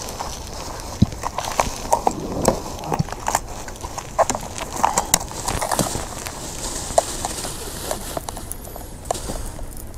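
Irregular knocks and clatter of gear being handled and bumped about in a small fishing boat, several sharp knocks a second at times over a steady background hiss.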